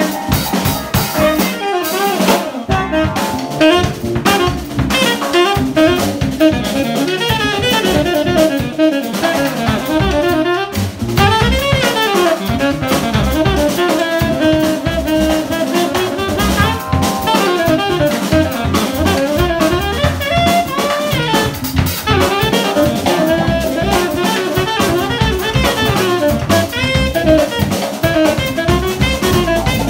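Live jazz band playing: a tenor saxophone carries a winding melodic line over electric guitar, electric bass and drum kit.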